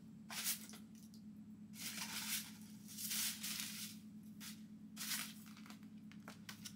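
Wig box packaging rustling as hands rummage through it and pull out a paper insert, in about four short bursts.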